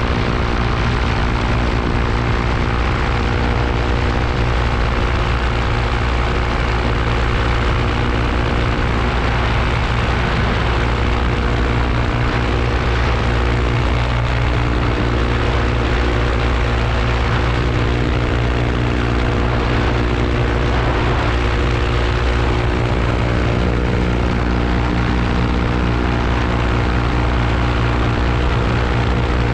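Paramotor engine and propeller running steadily in flight, a constant engine drone at a held throttle.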